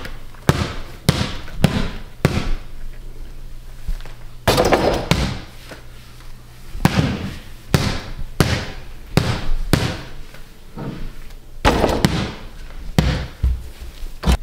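Small basketball dribbled on a hard floor: a string of sharp bouncing thuds with short echoing tails, about two a second, pausing for a couple of seconds early on before the dribbling picks up again.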